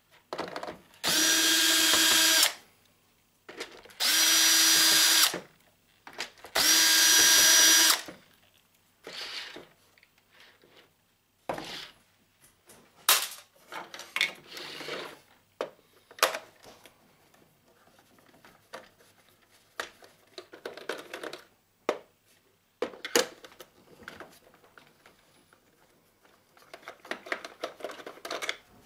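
Cordless drill-driver running in three bursts of about a second and a half each, backing screws out of a plastic office phone housing. After that come scattered clicks and knocks of the plastic case and loose screws being handled.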